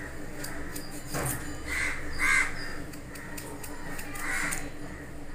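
Three harsh bird calls, two close together about two seconds in and one near the end, over faint clicks of a knife cutting through a potato held in the hand and a steady low hum.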